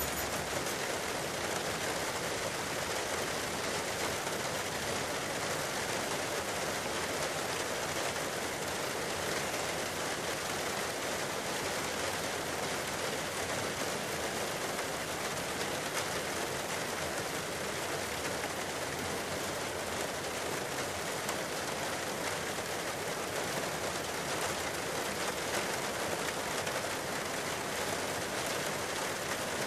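Steady, even rushing of running water, with no distinct rock impacts or other events standing out.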